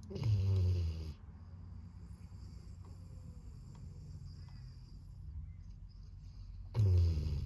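Golden retriever snoring in its sleep: two loud snores, one about a second in and another near the end, each a low rasp that drops in pitch.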